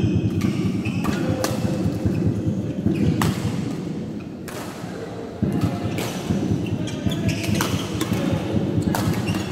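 Badminton rackets striking a shuttlecock in a string of sharp cracks, about one a second, with shoe squeaks on the court, over a loud low rumble that cuts in abruptly at the start and again about five seconds in.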